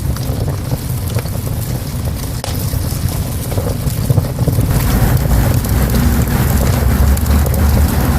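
Wood fire in a small stove crackling with many small irregular pops over a strong low rumble that grows stronger about five seconds in.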